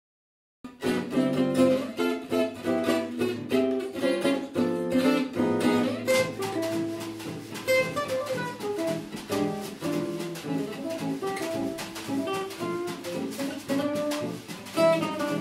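Gypsy jazz duo: an oval-soundhole Selmer-Maccaferri-style acoustic guitar picking a swinging jazz melody, with a snare drum keeping time underneath. The music begins abruptly just under a second in, out of silence.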